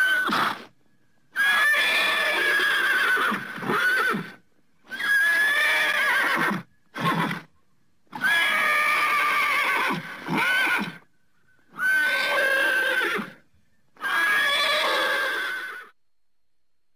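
Horse neighing: a series of seven or eight high whinnies, each half a second to two seconds long, with short silent gaps between them.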